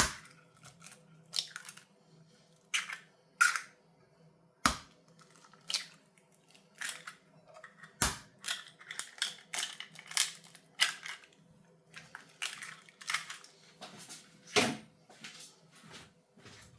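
Eggs being cracked open one after another: irregular sharp taps and clicks of shells against a bowl, with a few heavier knocks.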